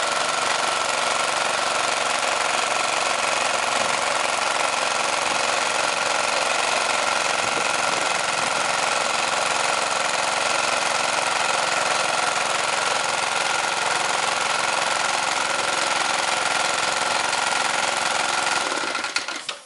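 Repaired Briggs and Stratton small engine running steadily with no squeal, a sign that the repair holds. It shuts off near the end.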